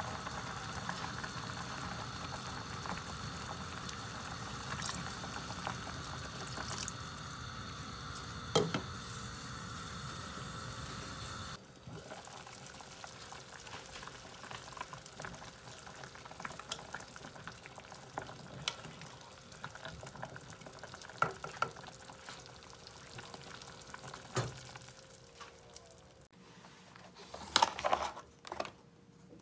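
Seaweed soup boiling hard in a pot on a gas stove: a steady bubbling with a few light clicks. The bubbling drops quieter about twelve seconds in. Near the end, a plastic food tray crackles briefly as it is handled.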